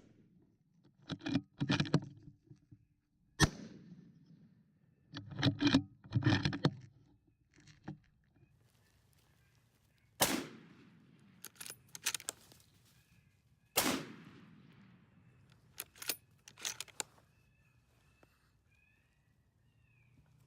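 A series of sharp bangs and knocks, some in quick pairs and several with a short echoing tail. Faint high steady tones come in over the last few seconds.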